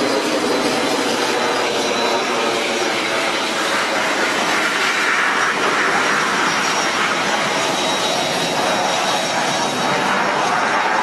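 A MiG-29's twin Klimov RD-33 turbofans in flight: loud, continuous jet noise with a slowly sweeping, phasing tone. It grows brighter and harsher about halfway through.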